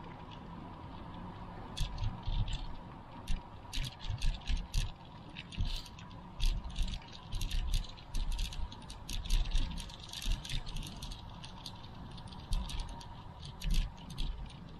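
Irregular clicking and rattling with dull low knocks, starting about two seconds in and stopping shortly before the end, over a faint steady tone.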